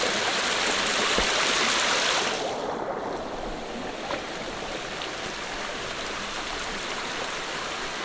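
Spring-fed creek water running over small falls and cascades: a steady rush, louder and brighter for the first two seconds or so, then dropping to a softer, steady flow.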